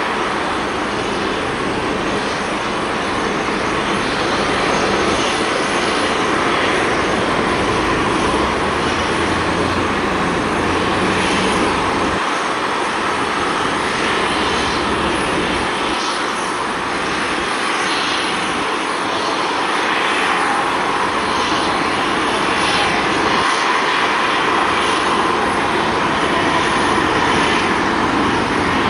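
Steady jet engine noise from a taxiing AirTran Boeing 717's rear-mounted Rolls-Royce BR715 turbofans at low thrust, a rushing hiss with a hum near 1 kHz that swells and eases slightly.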